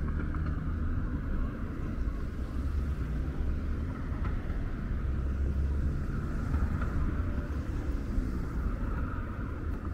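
City street traffic: a steady low rumble of passing vehicles with a constant background hiss.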